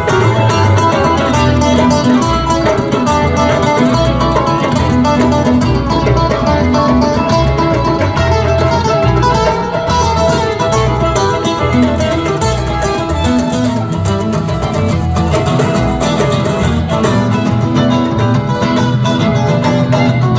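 Live rock band playing an instrumental jam, guitar to the fore over bass and drums.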